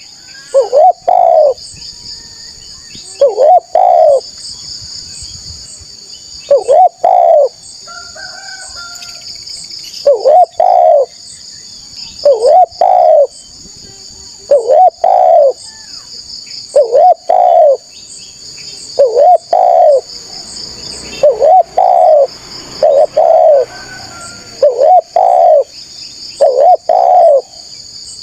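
Spotted dove cooing repeatedly, each phrase a quick run of two or three loud coos, about every two to three seconds. A steady high-pitched buzz runs underneath.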